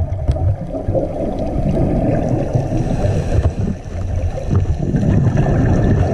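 Underwater noise picked up through a camera's waterproof housing on a scuba dive: a continuous, low gurgling rush of bubbles and moving water.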